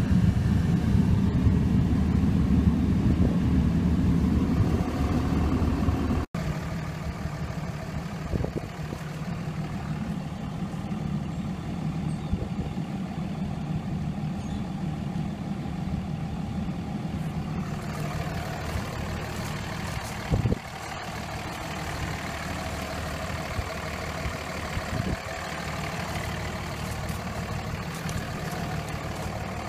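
Dodge Ram 3500's 5.9-litre Cummins turbo-diesel inline-six idling steadily, heard from inside the cab for about six seconds, then from outside the truck after a sudden cut, a little quieter.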